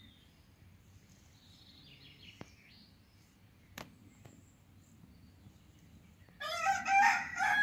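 A rooster starts crowing about six seconds in: one loud, long, drawn-out call that is the loudest sound here. Before it there is only quiet outdoor background, with a few faint bird chirps and small clicks.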